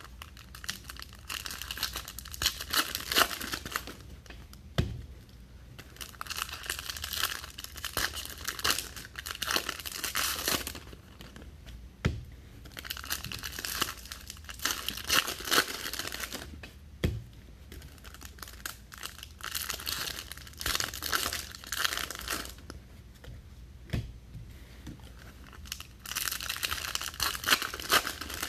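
Trading card packs and box wrapping being torn open and their wrappers crinkled, in five bouts of a few seconds each with a few sharp clicks between them.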